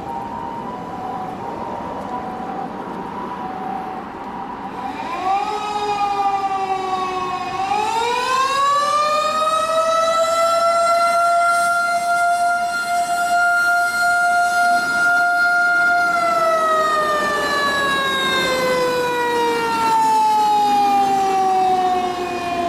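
A fire engine's mechanical motor siren winding up about five seconds in, dipping briefly and rising again to a steady high wail, then slowly winding down from about sixteen seconds on. Before it starts, a steady two-note tone sounds.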